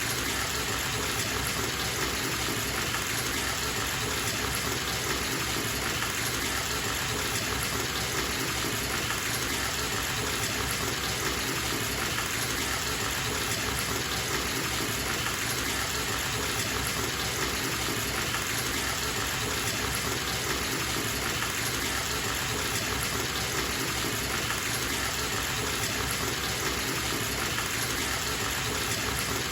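Bathtub tap running full, water gushing steadily into the tub.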